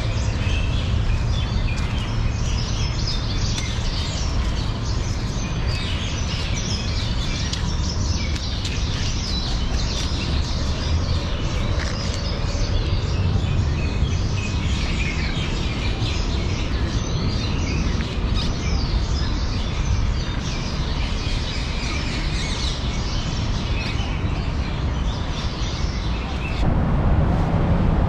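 Many small birds chirping over a steady low rumble. About a second before the end the chirping stops and a louder low rumble takes over.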